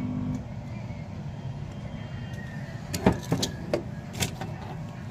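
A steady hum cuts off just under half a second in, leaving a low background rumble. About three seconds in comes a quick run of clicks and knocks as the soldering iron and small tools are handled and set down on the workbench.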